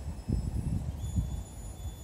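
Footsteps on dry grass close by, with thuds about a third of a second and just over a second in, over a faint high steady whine.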